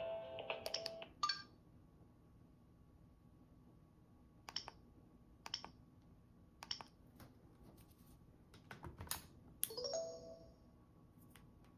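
A Gigaset Comfort 552A cordless phone's ringtone melody plays its last notes and cuts off about a second in. Then come separate sharp clicks of the phone's buttons being pressed, roughly a second apart, with a short beep near the end.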